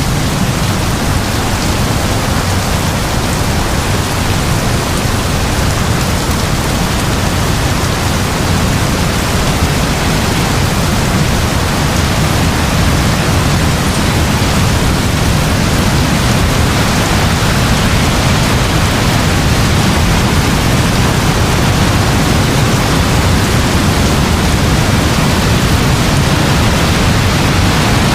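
Steady heavy rain: a dense, even hiss with a low rumble underneath and no separate thunderclaps.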